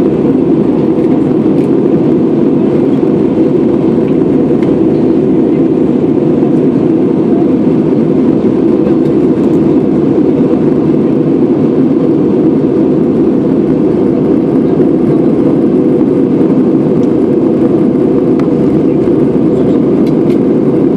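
Steady cabin noise of an airliner in flight, heard from inside the passenger cabin: an even, loud drone of engines and airflow.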